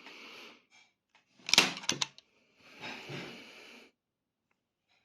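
Handheld staple gun fired into pine on its medium power setting: a loud, sharp snap with a couple of quick follow-on clicks about a second and a half in, surrounded by rustling handling of the tool.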